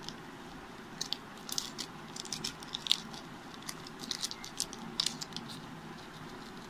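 A run of short crinkling and scraping clicks as a foil-lined Maggi masala sachet is shaken and tapped out over noodles in a pan, with a metal spoon in the pan; the clicks come thick for about four seconds, then stop, over a steady low hum.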